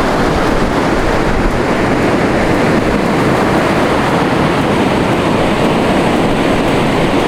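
Ocean surf washing steadily onto the shore, with wind on the microphone.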